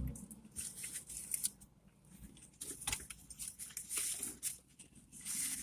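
Close-up eating sounds: chewing a fast-food burger and fries, with irregular small wet clicks and crackles.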